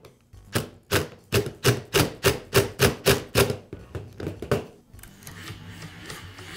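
Cordless impact driver run in short bursts, about three a second, driving home the screw that holds the reciprocating saw's gear. About five seconds in, it gives way to a quieter, steady mechanical running as the gear and blade-shaft drive are spun.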